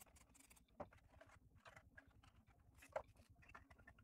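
Faint taps, clicks and rustles of lightweight 3D-printed plastic model parts being handled on a tabletop, with a sharper click about three seconds in.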